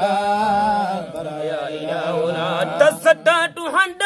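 A male voice chanting an Arabic devotional poem (Sufi dhikr madih), drawing out long ornamented notes over a steady lower held note. Near the end the voice breaks into short, separate sung syllables.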